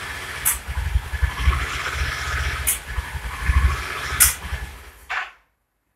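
Yamaha TDM 850 parallel-twin engine running unevenly, with four sharp pops a second or two apart: the engine sneezing back through the carburettor. The sound cuts off suddenly about five seconds in.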